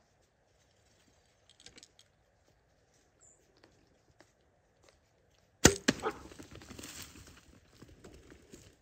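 A compound bow (Mathews VXR 31.5) shot a little more than halfway in: one loud, sharp snap of the string releasing and the arrow going out, with a second smaller crack just after. It is followed by a few seconds of scrambling and crashing as the hit hog and its companion flee through dry grass and brush.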